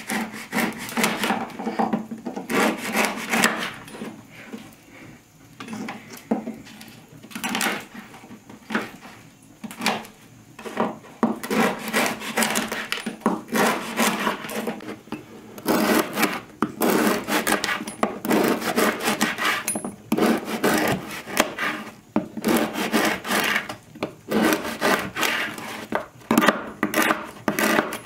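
Knife sawing through stale, crusty bread rolls on a wooden board: repeated rasping strokes through the crust, with sharp knocks where the blade meets the board.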